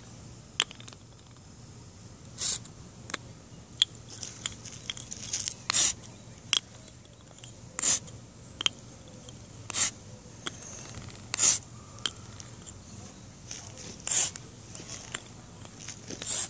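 Crayola sidewalk chalk scraped across a rough concrete sidewalk in short strokes, a scratchy rasp every second or two.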